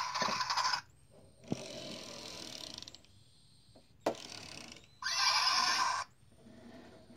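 Kyubi, a Kung Zhu Monsters battle toy, playing a string of electronic creature cries through its small built-in speaker: five short calls, the first and fourth the loudest, with a short sharp one about four seconds in.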